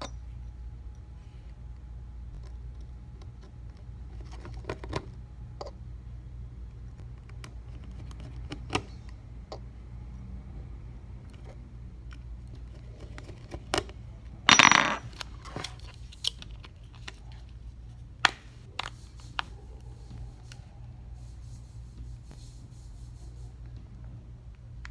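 Small tools and parts being handled during an iPhone 6s screen repair: scattered light clicks and taps, with a louder scrape and clatter about halfway through, over a steady low hum.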